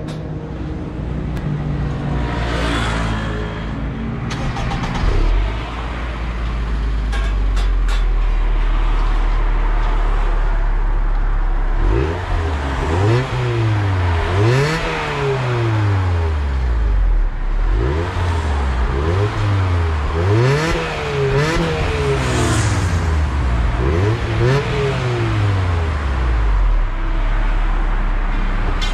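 Honda Accord CL7's four-cylinder engine heard through a Honda Modulo exhaust, idling steadily, then revved in a string of about eight quick throttle blips that each rise and fall in pitch, settling back to idle near the end.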